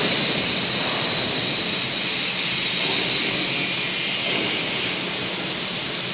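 Steady, loud industrial hiss and roar of factory machinery, most of it a high-pitched hiss. It eases slightly near the end.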